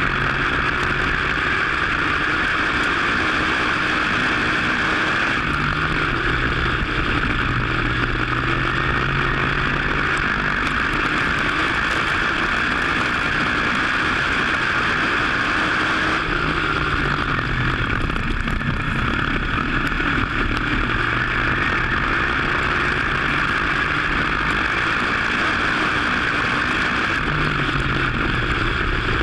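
WISSOTA Modified race car's V8 engine running, heard from an onboard camera. Its pitch rises and falls in a repeating cycle about every eleven seconds, over a steady rush of noise.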